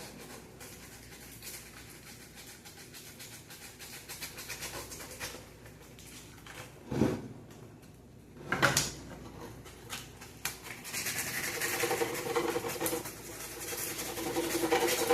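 Sandpaper rubbing by hand on a model ship's surface: faint scratchy sanding with small clicks, two short knocks in the middle, then steadier, louder scratching strokes over the last few seconds.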